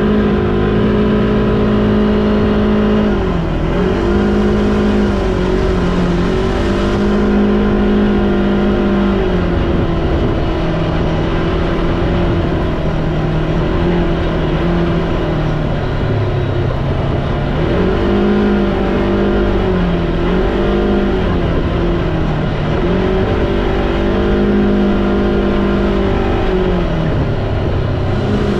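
Vehicle engine running under way, its pitch holding level and dipping briefly several times as the throttle comes off and back on.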